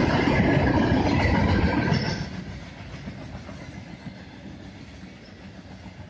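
Freight train boxcars rolling past on the rails. The sound is loud for about the first two seconds, then drops suddenly to a quieter, steady rolling noise.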